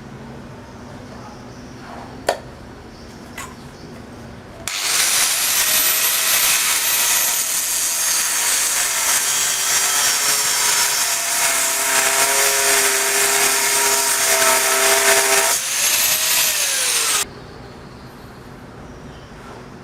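An electric power tool runs under load on metal for about twelve seconds, a loud grinding hiss over a high whine. It starts about five seconds in and cuts off abruptly, the whine sagging just before it stops. One sharp click sounds about two seconds in.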